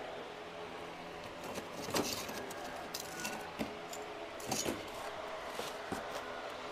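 Lumps of charcoal clinking and knocking together as they are handled, in scattered irregular taps, the loudest about two seconds in and again around four and a half seconds in.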